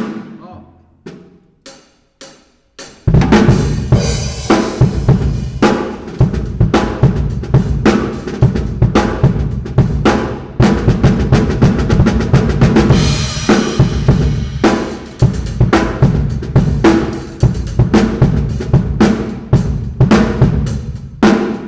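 Drum kit played: a few snare strokes, then about three seconds in a full groove of snare, bass drum and cymbals. The snare is heard with its own six-year-old batter head, without the old bass drum head laid over it, and a wallet rests on the head to hold down its overtones.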